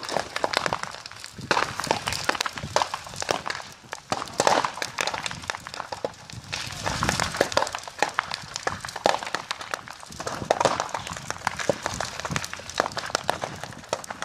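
A burning wooden house crackling and popping, with many irregular sharp cracks over a steady noise.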